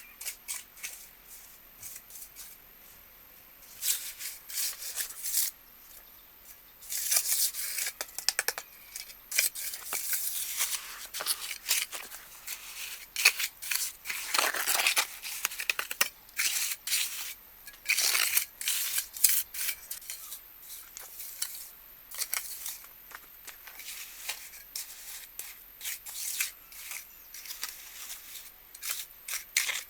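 Irregular crisp snipping, rustling and scraping sounds from hands working with some material, coming in short spells of quick clicks with brief pauses between.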